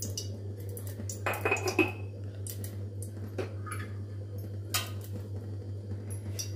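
Light clinks and knocks of metal pots and utensils over a steady low hum. The clatter is busiest about a second and a half in.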